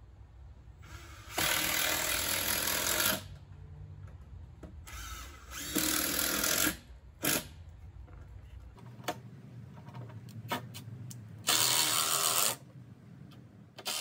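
Cordless drill driving screws into a wooden frame: three bursts of one to two seconds each and one short burst, with light clicks and knocks of handling between them.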